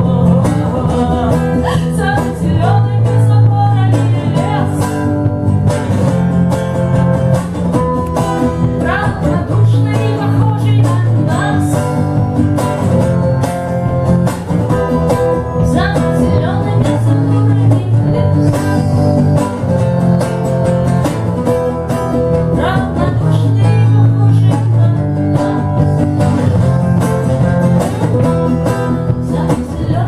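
Live song: a woman singing to her own strummed acoustic guitar, with an electric bass guitar playing along.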